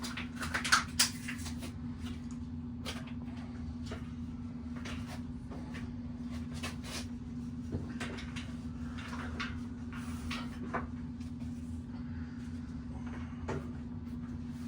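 Scattered clicks, knocks and rustles of bicycle parts being handled, the two loudest about a second in, over a steady low hum.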